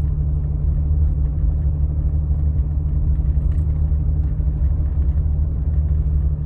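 Steady low rumble of a vehicle's engine and road noise as it drives up a hill.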